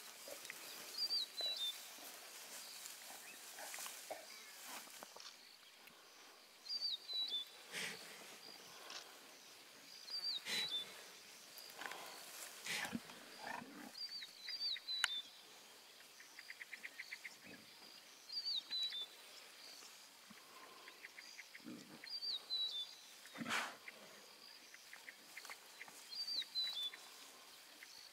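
Lion cubs growling in short bursts as they bite and tug at impala scraps. A bird repeats a short, high call every few seconds.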